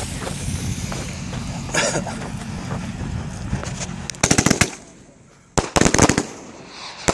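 500 gram fan-shaped firework cake going off: after about four seconds of steady rushing noise, a rapid volley of sharp cracks, then a second volley about a second later, and a third beginning near the end.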